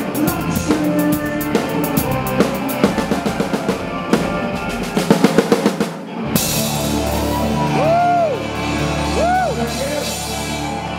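Rock band playing live, the drum kit driving hard with a fast run of drum strokes about five seconds in. The band then lands on a held final chord under crashing cymbal wash, with two swooping pitch bends over it.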